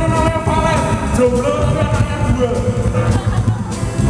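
Live rock and roll band playing: a male singer's line in the first part, over electric guitar, upright bass and a drum kit keeping a steady beat.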